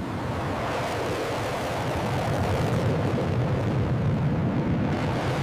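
Jet fighter engine at full afterburner on a takeoff run: a steady rushing rumble, heavy in the low end, that builds slightly.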